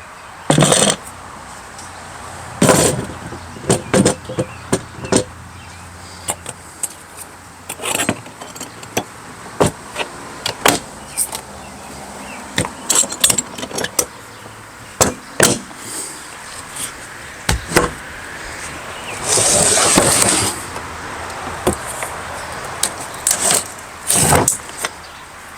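Knocks, clicks and bumps of a loaded plastic rolling toolbox being handled and set in place on a pickup truck bed, with a longer scraping, sliding noise near the end.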